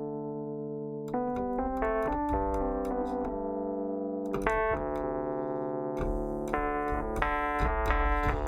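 Universal Audio Electra 88 electric piano plug-in played on a factory preset: chords and melodic notes with clear key attacks, sustained and overlapping, with a bass line coming in and the playing growing fuller about six seconds in.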